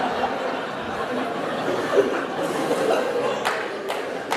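Theatre audience laughing at a punchline, a steady wash of many people's laughter, with a few scattered claps joining near the end.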